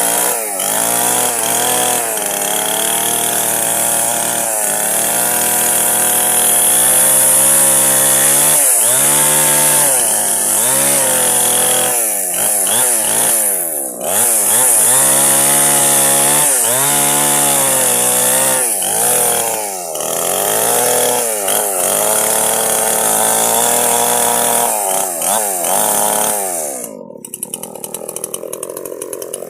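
Chainsaw cutting wood, its engine pitch repeatedly dipping under load and climbing again. About 27 seconds in, the throttle is released and it falls to a quieter, ticking idle.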